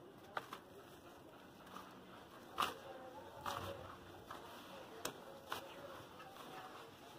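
Hands crumbling and squeezing wet cement and sand in a basin of water: faint crunching and squishing, with a few sharp clicks, the loudest about two and a half seconds in.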